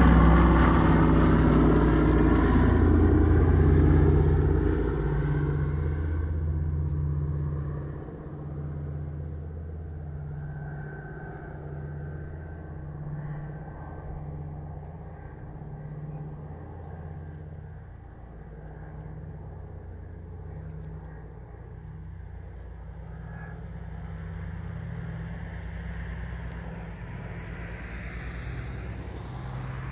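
A Douglas C-47A (DC-3) with twin Pratt & Whitney R-1830 radial engines droning as it passes low overhead, its pitch falling as it goes. Over the first several seconds it fades to a distant drone with a slow, regular pulsing beat as the plane flies away.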